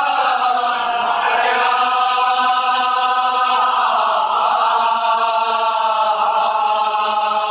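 A group of voices chanting a Kashmiri marsiya (mourning elegy) together, in long held notes that slide slowly down and back up in pitch.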